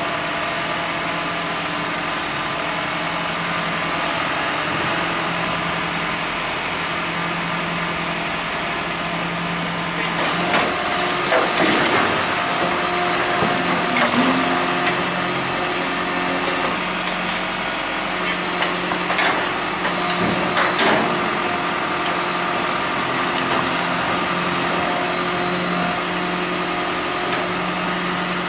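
Garbage truck engine running steadily while its hydraulic crane lifts a wheeled dumpster and tips it into the rear hopper. From about ten seconds in, metal clanks and knocks of the container being emptied come through, with a higher steady whine under them for several seconds.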